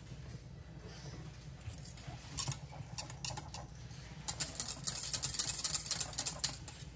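Wire whisk clicking against the sides of an enamel saucepan as a thick brown gravy is whisked: scattered ticks at first, then a fast, dense rattle from about four seconds in until just before the end.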